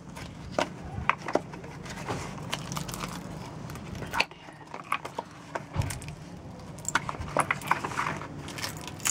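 Cast orgonite pucks, resin set with metal shavings, being pushed out of a silicone mould and set down on wooden deck tiles: irregular clicks and knocks, with a low steady hum underneath.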